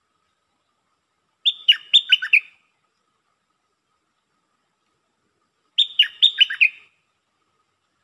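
Stripe-throated bulbul singing: two short phrases of about five quick notes that drop in pitch, the second about four seconds after the first.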